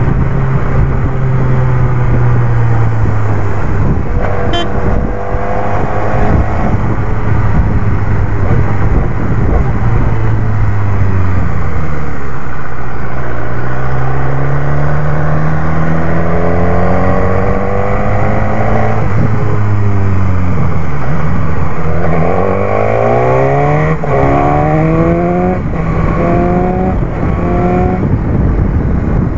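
BMW S1000R's inline-four engine heard from the rider's seat, with wind rushing over the microphone. The revs fall slowly as the bike rolls off and slows, then rise as it accelerates. Near the end they climb in several quick steps, each cut short by an upshift.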